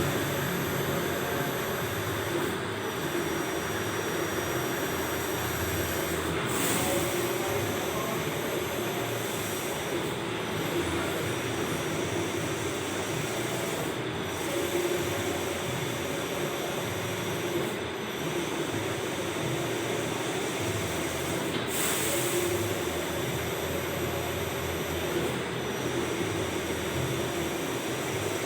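Allwin 512i large-format printer running a print job: steady mechanical running noise with a high whine. About every four seconds the whine breaks off briefly as the print carriage turns at the end of each pass.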